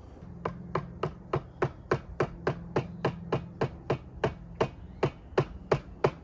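A chisel being struck, chopping straight down into cypress wood to cut a bevel. It gives a steady run of sharp knocks, about three a second.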